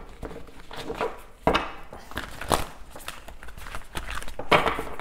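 Cards being handled on a table: irregular knocks and short rustling swishes, the loudest near the end.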